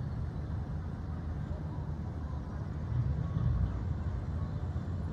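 Steady low outdoor rumble with no distinct events, swelling slightly about three seconds in.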